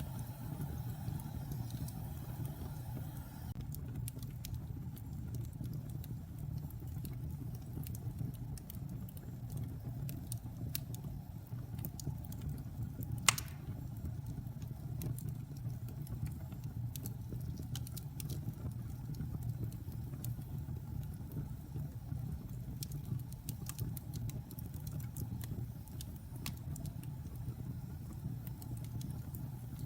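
A fire crackling, with scattered sharp pops over a steady low rumble, and one loud crack about halfway through.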